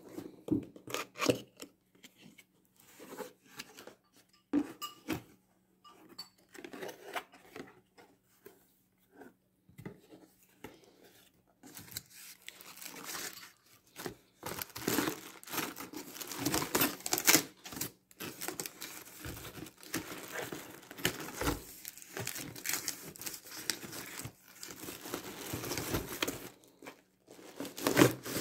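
Cardboard box being opened by hand: scattered knocks and scrapes of the box being handled, then, about twelve seconds in, dense rustling and crinkling of cardboard flaps and plastic wrapping.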